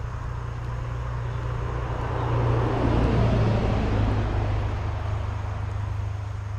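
A vehicle crossing the bridge overhead: its rumble swells to a peak about three seconds in and then fades away, over a steady low hum.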